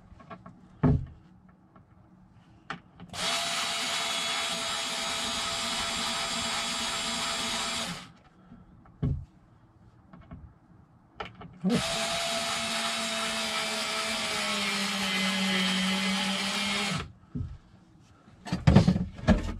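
Cordless drill running in two steady bursts of about five seconds each, working into a plywood board. Its pitch drops slightly late in the second burst. A few short knocks come in between.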